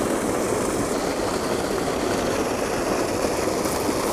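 Steady rush of water pouring from a spillway pipe into a creek, an even noise that holds at one level throughout.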